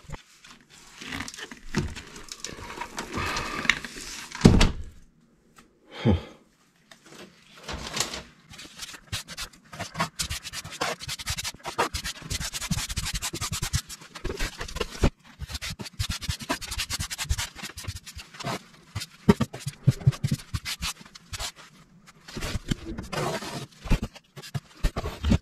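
Rubber grout float scraping over ceramic wall tiles, pressing Mapei Flex Color CQ grout into the joints: a dense run of scrapes with many small knocks.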